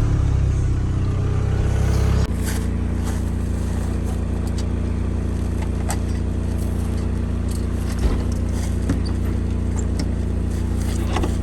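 1987 Toyota pickup's engine running just after being started through a push-button bypass that gets round a failed ignition. It runs higher and louder for about two seconds, then drops suddenly to a steady idle. A few light clicks come over the idle.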